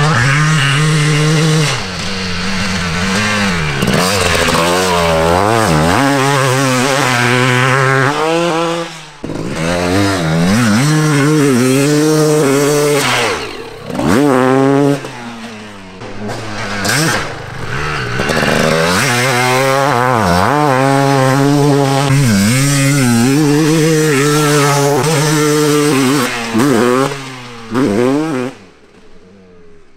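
Two-stroke Suzuki motocross bike on the track, its engine revving up and down again and again as the rider opens and closes the throttle through jumps and turns. The engine note drops off briefly a few times, most deeply near the end.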